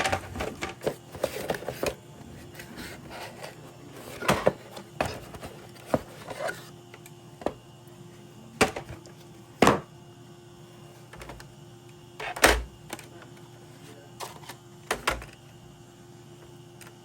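Irregular clicks, taps and knocks of hard parts being handled and set down, about a dozen sharp ones scattered unevenly, over a faint steady hum.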